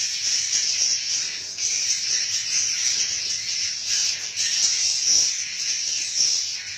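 Dense, continuous high-pitched chirping and twittering of many swiftlets together.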